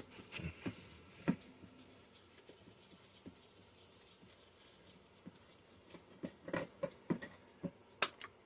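Faint scattered clicks and light metallic scrapes of a screw being taken out of a microwave magnetron's housing with a hand tool, with a few sharper taps near the start and a busier run of clicks near the end.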